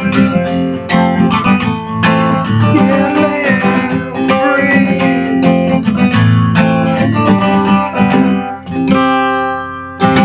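Acoustic guitar strummed in steady chords. Late on the playing briefly drops away, then a chord is left to ring out.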